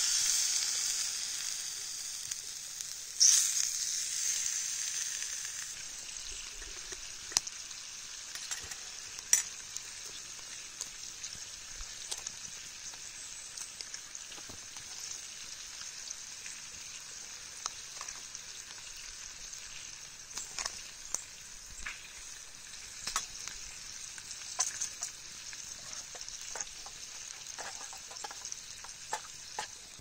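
Bacon frying in a metal pan over a campfire, sizzling steadily. The sizzle surges loudly at the start and again about three seconds in, then settles into a steady hiss with scattered sharp pops.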